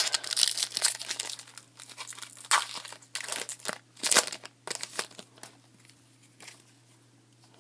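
Baseball card pack wrapper being torn open and crinkled by hand: a dense run of short rustling and tearing noises that dies away over the last two seconds.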